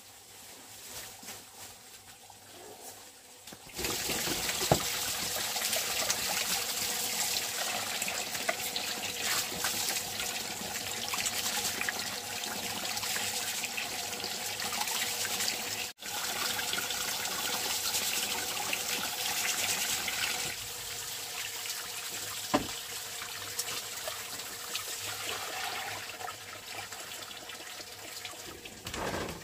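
Water running and splashing steadily, starting about four seconds in, with a brief break about halfway through.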